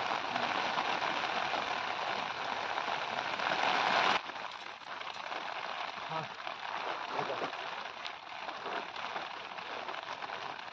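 Steady rain falling, an even hiss that drops suddenly to a lighter level about four seconds in.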